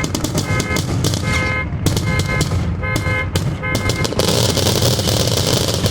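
Rapid fireworks bangs of a finale, with the steady tone of an alarm, set off by the fireworks, sounding between them. About four seconds in, a dense hiss takes over and the alarm tone drops out briefly.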